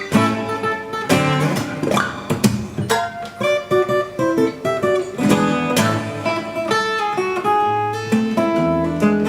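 Music: acoustic guitar plucked and strummed, with notes changing every fraction of a second and a moving bass line.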